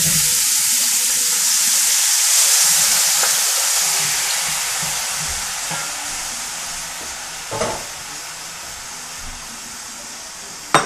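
Raw strips of beef chuck sizzling loudly as they fry in a hot pot, stirred with a wooden spoon; the sizzle grows gradually quieter, with a knock about two thirds of the way through and a sharper one at the end.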